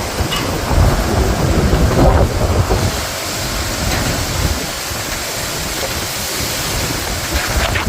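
Storm wind gusting hard with rain, the gusts coming as heavy uneven low rumbling for the first three seconds or so, then settling into a steadier hiss.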